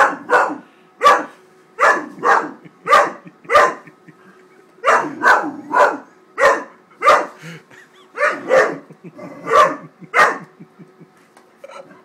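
Great Dane puppy barking in a long series of single barks, one or two a second, with a short pause about four seconds in and the barking stopping near the end. Upset barking at a paper bag.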